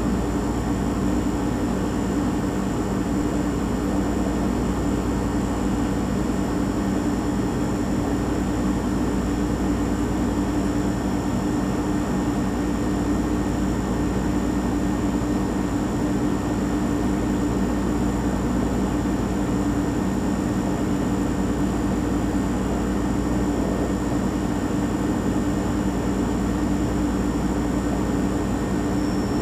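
Refrigerator compressor running: a steady hum with strong low tones and a deep rumble beneath, unchanging throughout.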